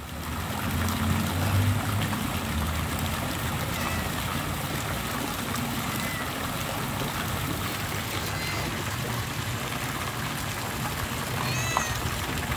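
Steady rush of running water in a swimming pool, with a few faint, short high chirps over it.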